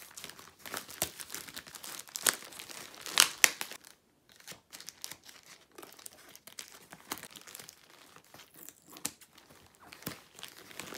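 Grey plastic mailing bag crinkling as hands pull a boxed kit out of it. Sharp crackles are loudest and densest in the first few seconds, then sparser and quieter.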